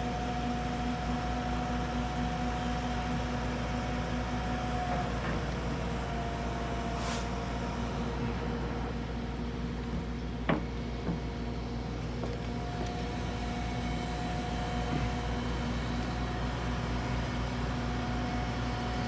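A steady mechanical hum with several held tones over a low rumble, with one sharp knock about ten and a half seconds in.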